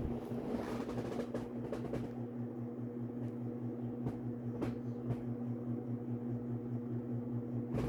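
1978 Hunter Original ceiling fan's oil-bath motor running on high speed, a steady electrical hum with a few faint ticks.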